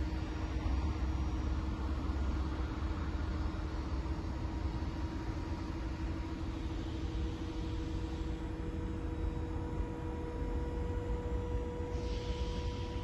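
Battery-electric JLG E600JP articulating boom lift's hydraulic pump motor whining steadily while the boom lifts and swings the platform, one of its tones growing stronger about halfway through, over a low rumble.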